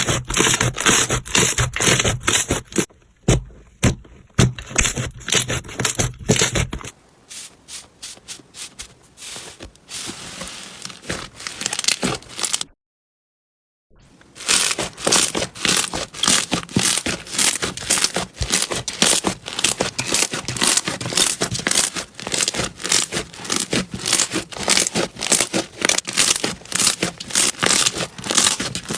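Slime being squeezed and poked by hand, giving dense rapid crackling and popping clicks, with about a second of silence near the middle.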